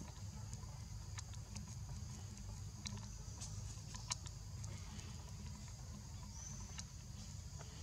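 Outdoor ambience: a steady high-pitched insect drone over a low rumble, with scattered small clicks and taps. A sharp tap about four seconds in is the loudest sound.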